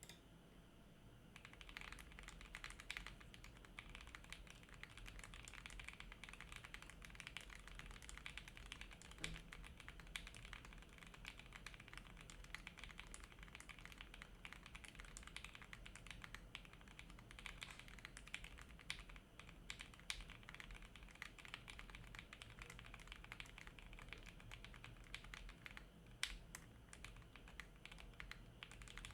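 Continuous fast typing on a 60% mechanical keyboard with lubed JWICK/JWK Ultimate Black linear switches on a 1.2 mm ABS half plate: a dense run of soft keystrokes that starts about a second and a half in, with a few louder single strokes.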